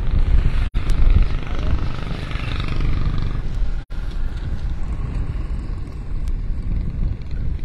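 Wind buffeting a phone's microphone: a heavy, uneven low rumble that cuts out for an instant twice, about a second in and about four seconds in.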